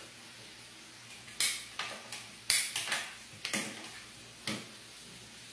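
Kitchen utensils clinking and knocking against cookware: a string of about ten sharp clinks over about three seconds, the loudest about a second and a half and two and a half seconds in.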